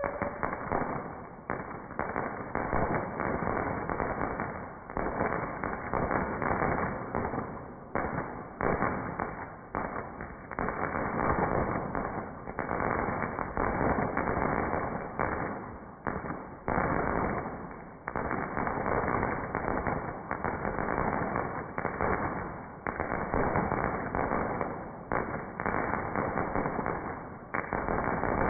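Fireworks going off in quick succession: a dense, continuous run of bangs and crackles, with louder swells every second or two.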